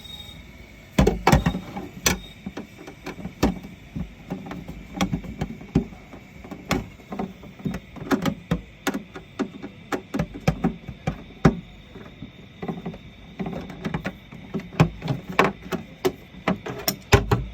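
Irregular knocks, clicks and clatter of a paper shredder's plastic housing being handled and taken apart, with its cutting head being worked loose from the bin.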